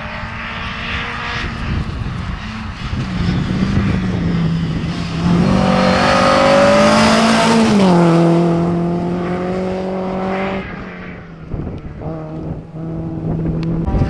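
Renault Clio RS rally car's four-cylinder engine held at high revs as it approaches at speed. It grows louder to a peak about seven seconds in, drops in pitch as it passes, then fades away.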